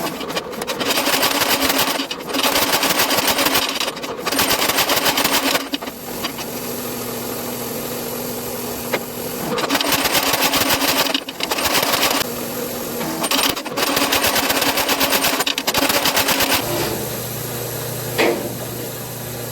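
Sped-up forging: hammer blows on a hot railroad spike on an anvil, run together into rapid rattling bursts of a second or two each with short pauses between, over a steady hum.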